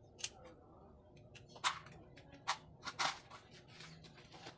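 A handful of sharp, irregularly spaced clicks and clacks from a hand riveter and a drill being handled and set into cut-plastic belt holsters.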